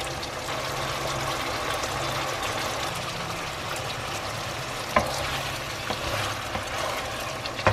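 Chicken liver, gizzard and heart adobo sizzling and bubbling in its oily sauce in a pan, with one sharper pop about five seconds in.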